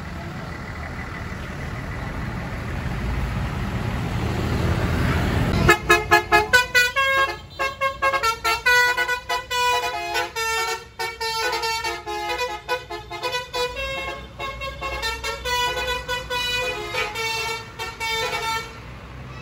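A bus draws near, its rumble growing louder, then its Basuri 'telolet' multi-tone horn plays a quick tune of short notes for about thirteen seconds before stopping.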